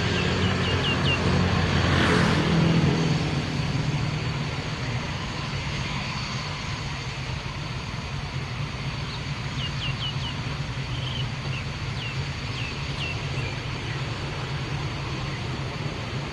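Jet engine rumble of Mirage 2000 fighters passing overhead, loudest about two seconds in and then fading to a steady low drone as they move away.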